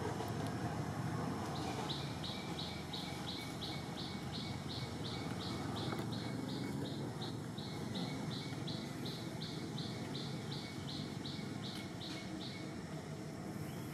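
A bird calling in a rapid, even series of high chirps, about three or four a second, starting about two seconds in and stopping shortly before the end, over a steady low background rumble.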